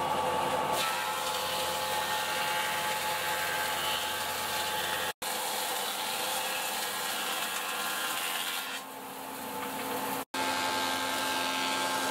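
Thickness planer, part of a combination planer-thicknesser, running and planing rough pallet boards: a steady machine whine with the hissing, rasping noise of the cutterhead taking wood off. The sound drops out abruptly for an instant twice.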